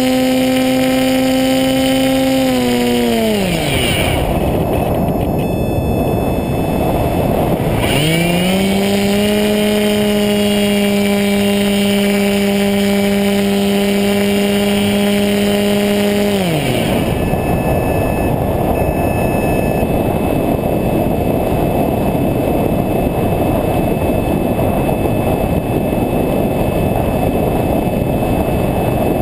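A radio-controlled model plane's motor and propeller run at a steady whine, then wind down about three seconds in, leaving wind rushing over the microphone as it glides. About eight seconds in the motor spools back up to a steady pitch, then cuts again after about sixteen seconds, leaving only wind noise.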